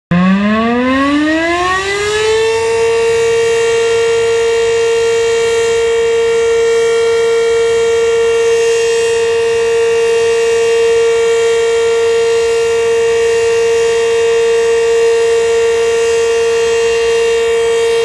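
Outdoor warning siren, which the uploader takes for a Federal Signal Model 5, sounding its daily noon test: it winds up, rising in pitch over about two and a half seconds, then holds one steady, loud tone.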